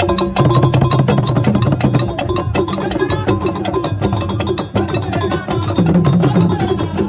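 Traditional Dagaaba funeral drumming: hand-held gourd drums and wooden standing drums beaten with sticks in a fast, dense rhythm, with some pitched ringing under the strokes.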